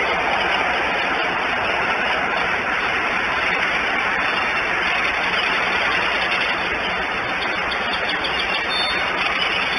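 Steady, even rushing hiss of wet weather around an eagle nest, picked up by the nest camera's outdoor microphone; no calls from the huddled eaglets.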